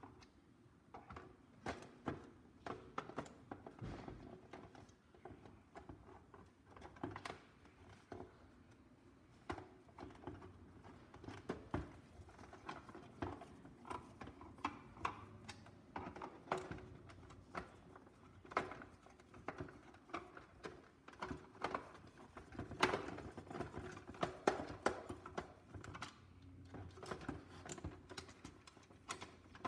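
Irregular light clicks, taps and scrapes of a screwdriver and hands working on the stainless-steel housing of a Breville pressure cooker while screws are taken out of its control panel. The clicks are loudest about two-thirds of the way through.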